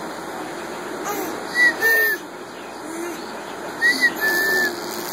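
A clear two-note whistle heard twice, about two seconds apart: a short note that rises and falls, then a longer level note a little lower.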